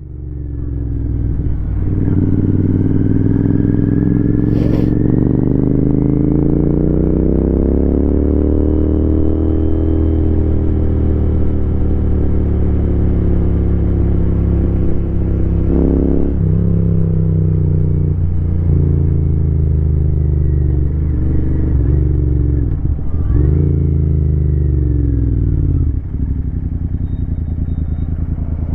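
Royal Enfield Continental GT 650's parallel-twin engine under way, pulling steadily up through the revs for about ten seconds and holding there. In the second half the pitch drops in steps, with several lifts off the throttle and a lower steady run near the end. There is a brief sharp click about five seconds in.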